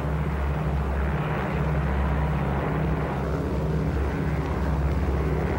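Propeller aircraft engines droning steadily at a low pitch.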